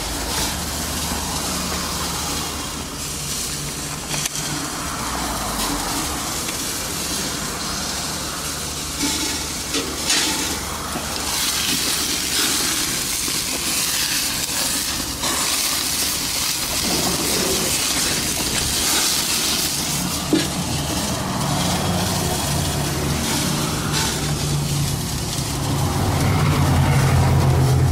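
Meat sizzling over the flames of a Cuisinart CGG-200 portable propane gas grill: a steady hiss with a few small pops. A low steady hum runs underneath and grows louder near the end.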